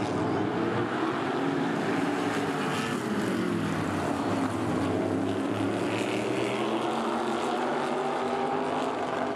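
A pack of open-wheel modified race cars running at racing speed on an oval, several engines at once, their pitches rising and falling as the cars go through the turn and past, with one clear downward sweep a few seconds in.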